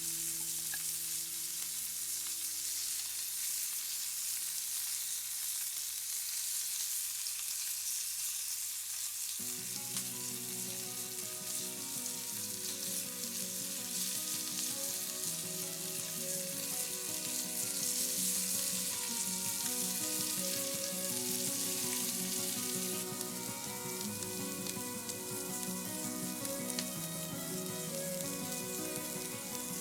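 A lump of meat sizzling in a frying pan over a wood fire: a steady frying hiss. Soft background music comes in about a third of the way through.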